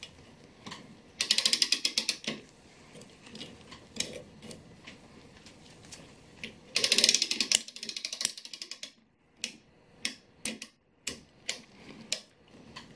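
Clock mainspring winder's ratchet clicking rapidly as its crank is turned to wind the mainspring. The clicking comes in two quick runs, about a second in and again midway, with scattered single clicks between and after.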